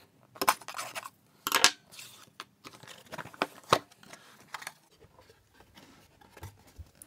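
A knife slitting the seal on a cardboard box, then the box being slid and opened, with irregular scrapes, rustles and small knocks of cardboard. The loudest scrape comes about a second and a half in.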